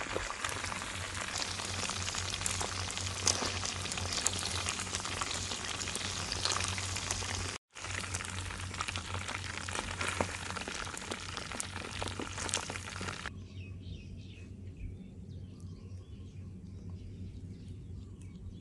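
Chicken drumsticks deep-frying in soybean oil in a steel wok: a steady, dense crackle and sizzle of bubbling oil, with a brief break about eight seconds in. About thirteen seconds in the frying cuts off abruptly, leaving only quiet background sound.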